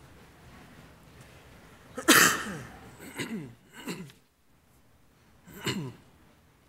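A loud sneeze about two seconds in, followed by three shorter coughs, each dropping in pitch.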